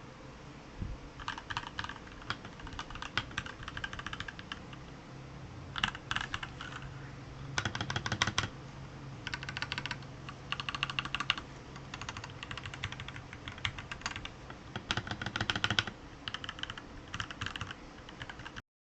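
Typing on a Royal Kludge RK84 mechanical keyboard: bursts of rapid keystroke clicks with short pauses between them, cutting off suddenly near the end.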